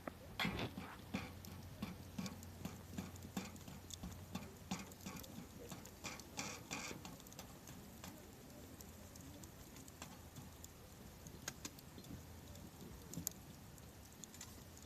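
Campfire crackling, with irregular sharp pops that come thick and fast for the first several seconds and then thin out to an occasional snap.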